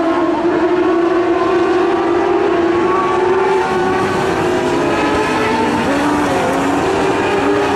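Several modlite race cars running laps on a dirt oval. Their engines are held at high revs, and their pitches overlap and drift up and down as the cars pass.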